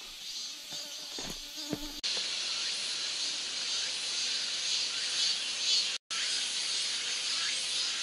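Steady high-pitched chorus of forest insects. There are a few light snaps in the first two seconds, and the sound cuts out for a moment about six seconds in.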